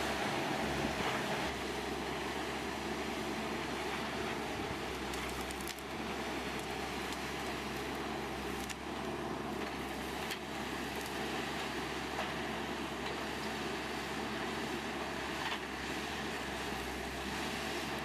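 A machine's engine running steadily, with a few faint clicks.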